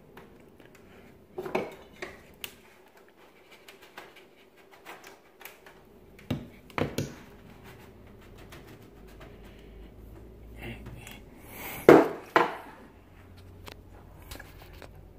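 Scattered clicks, knocks and light clatter of hard objects being handled, with the loudest pair of knocks about twelve seconds in.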